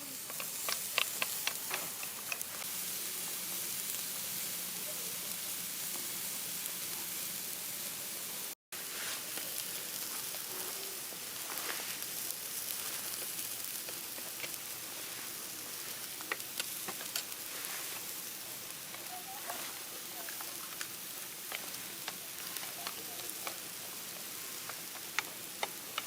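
Food sizzling steadily in hot fat over a charcoal fire, with scattered crackles and pops.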